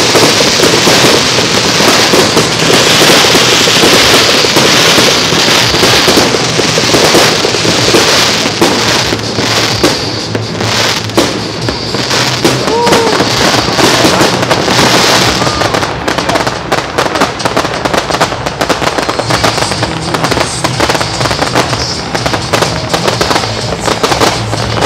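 Fireworks display in a dense, continuous barrage: many shells bursting in quick succession, a rapid stream of bangs and crackles with no pause.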